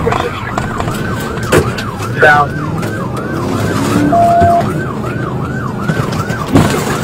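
Police siren in a fast yelp, sweeping up and down about twice a second, over the patrol car's engine and road noise during a pursuit.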